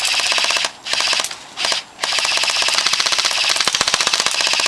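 Airsoft guns firing on full-auto, a fast stream of sharp clicks in bursts: a few short bursts, then one long unbroken burst from about two seconds in.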